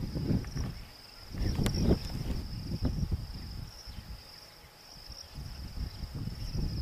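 Insects trilling steadily at a high pitch, over a low rumble that swells and fades.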